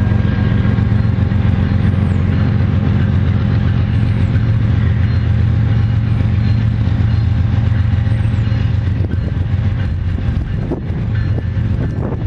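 Steady low rumble of an approaching freight train's GE diesel locomotives, heard before the train comes into sight, with a few short clicks near the end.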